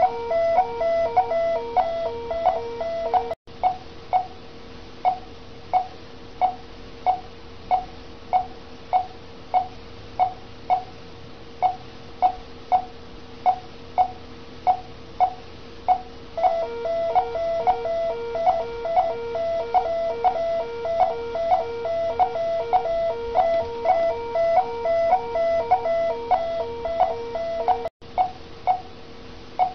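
Bedside patient monitor beeping in step with the heartbeat, a short mid-pitched beep about one and a half times a second. A second, rapidly pulsing alarm tone sounds alongside it for the first few seconds and again through the last third, each stretch cutting off abruptly.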